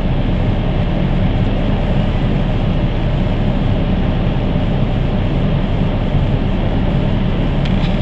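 Strong wind buffeting the camera microphone in a driving snowstorm: a loud, steady, low rumble.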